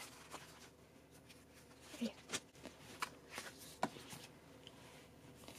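Faint handling of stiff paper and card: small printed cards being shuffled together and an album's thick pages opened by hand, giving a scatter of soft rustles and taps.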